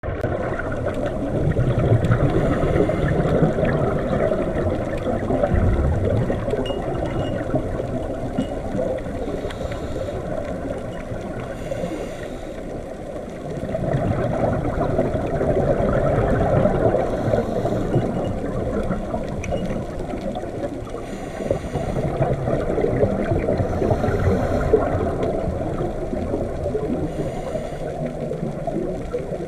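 Water gurgling and burbling steadily, swelling and easing in slow waves.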